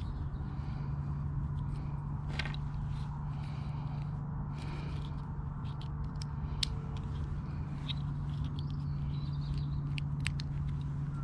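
A few scattered small clicks and scrapes of a folding utility knife being handled, opened and folded, over a steady low hum.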